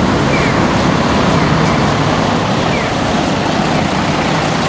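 City route bus's diesel engine running steadily as the bus pulls out from a stop and drives past close by, with road and traffic noise around it.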